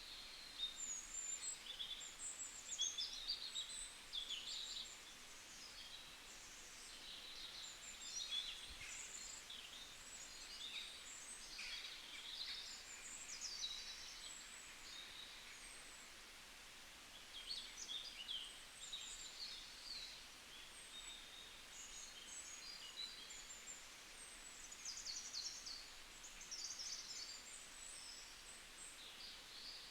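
Several songbirds chirping and singing at once, with quick overlapping high-pitched calls and trills coming and going throughout, faint over a steady outdoor background.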